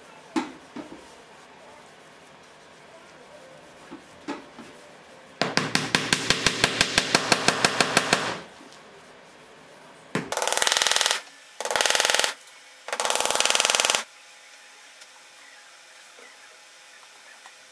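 A wooden mallet taps quickly and evenly on a plywood panel's edge, about five taps a second for three seconds. Then an aerosol spray can hisses in three short bursts.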